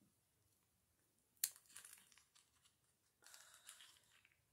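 Small cosmetics package being torn open by hand: a sharp tear about a second and a half in, then crinkling of the wrapping, and another stretch of crinkling near the end.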